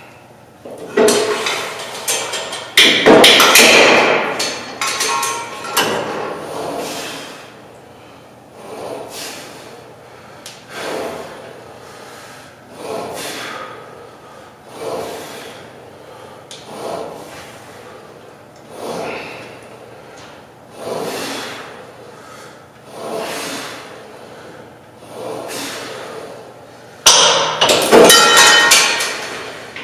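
Cable-tower weight machine: metal clanking and knocking from the weight stack and handle in the first few seconds, then a steady rhythm of softer strokes about every two seconds as reps are done, and another burst of clanking near the end.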